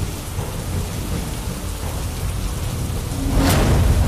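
Steady heavy rain, with a crack of thunder about three and a half seconds in, rumbling low as it swells.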